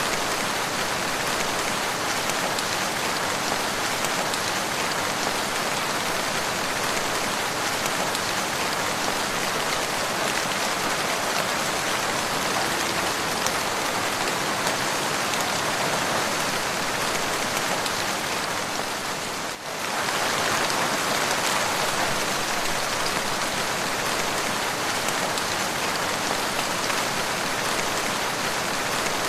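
Steady rain falling, an even wash of sound with a brief dip in level about two-thirds of the way through.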